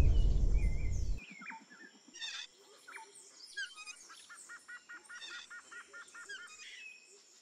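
Background music fading out in the first second. Then comes a faint jungle soundscape of assorted bird calls: scattered chirps and whistles, with a quick run of about ten repeated notes in the middle.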